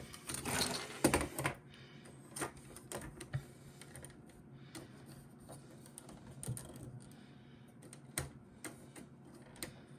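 Scattered light clicks and clatter of plastic action-figure parts being handled, with a brief rustle in the first second or so.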